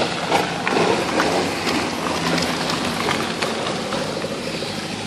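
Ford Escort Mk1 race car rolling past at low speed, its engine running at low revs with irregular sharp pops. Another car's engine note comes in near the end.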